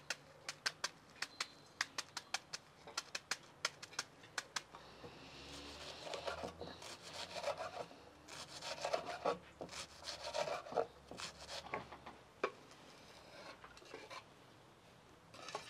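Chef's knife chopping half an onion on a wooden cutting board: a quick run of sharp taps, about four a second, then a stretch of rasping scrapes of the blade against the board.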